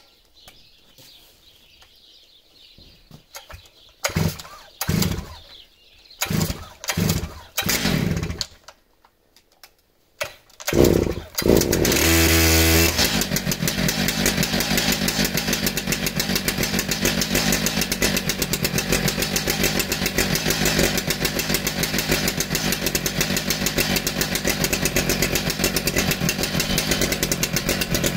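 Stihl MS 881 chainsaw's 121.6 cc two-stroke engine pull-started from cold: several short pulls of the starter cord, a pause, then the engine catches about eleven seconds in. It runs fast for a second or two, then settles into a steady idle.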